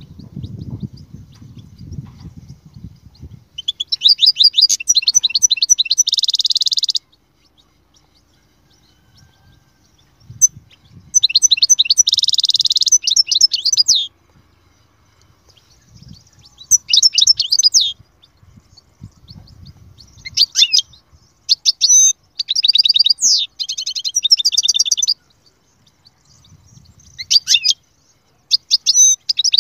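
European goldfinch singing: bursts of rapid, high twittering trills with dense buzzy stretches, in about six phrases separated by short pauses.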